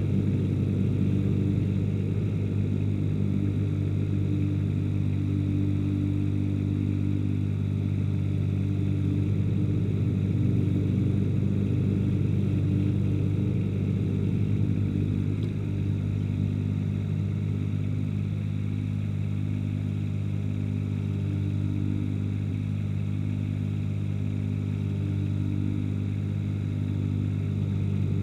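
Ransomes HR300 ride-on mower's engine running steadily, with a constant low drone that eases off slightly about halfway through.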